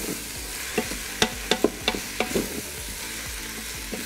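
Wooden spoon stirring sliced steak, mushrooms and onions sautéing in a stainless steel Instant Pot inner pot: a steady sizzle under irregular sharp knocks and scrapes of the spoon against the pot, the sharpest between one and two seconds in.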